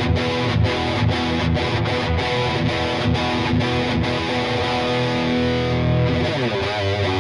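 Fender Blacktop Jaguar HH electric guitar with a distorted tone, strumming chords that break off briefly about twice a second. Near the end it moves to held notes, bent and shaken with vibrato.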